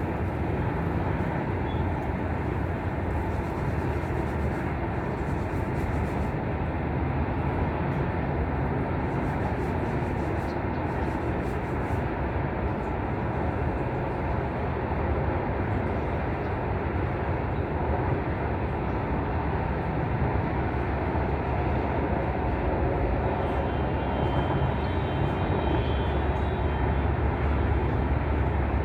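Wind blowing across the microphone: a steady rushing noise with a deep rumble, a little stronger near the end.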